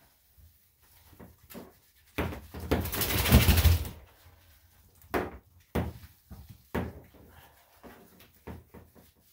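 Water splashing in a bathtub as a soaked dog's coat is squeezed and rubbed by hand: a loud splashing rush lasting nearly two seconds about two seconds in, then a few short splashes.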